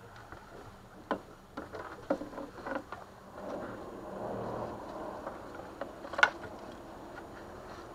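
A few sharp knocks and clicks, the loudest about six seconds in, with a softer rustle in between, as the camera is handled and turned on the boat.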